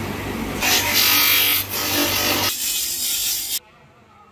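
Power-driven cloth buffing wheel running with a steady motor hum, then a loud hissing rub from about half a second in as the buff works the stainless steel, cutting off suddenly near the end.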